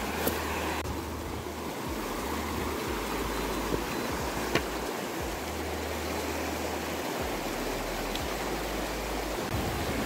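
Steady rush of stream water flowing over rocks at the top of a waterfall, with a brief faint click about halfway through.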